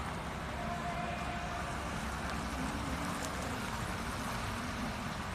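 Truck engine running steadily at low revs, a continuous low rumble.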